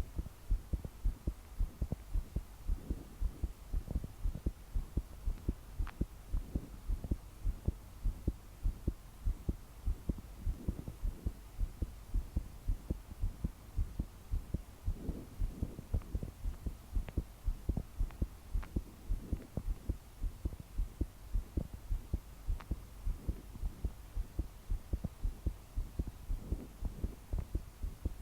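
A young woman's heart beating fast and pounding, a rapid, steady run of deep thumps. These are palpitations, each beat forceful enough to shake her body.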